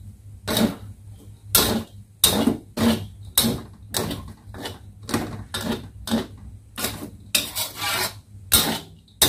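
A spatula scraping and tossing fried rice around a wok in quick, regular strokes, about two a second, over a low steady hum.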